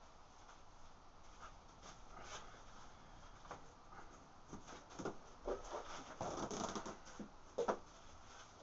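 Faint shuffling and scraping as a person kneels and drags an interlocking foam floor mat across a concrete floor, with a sharper knock near the end.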